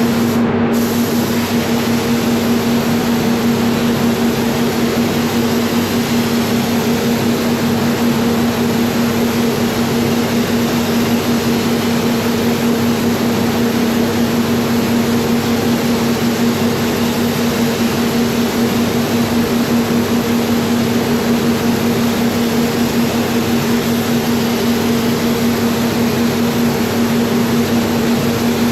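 Continuous compressed-air hiss of a SATAjet X5500 RP spray gun laying down clear coat, over a steady low hum.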